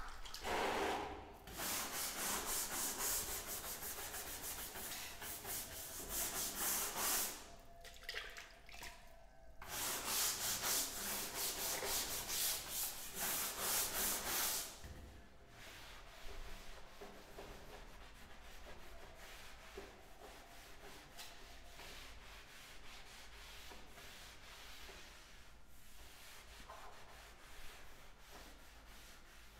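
A stiff-bristled scrubbing brush rubbed hard back and forth along the joints of floor tiles, in two long bursts of rapid scratchy strokes, clearing leftover tile adhesive from the joints before grouting. After that, a softer rubbing from a cloth wiping the tile surface.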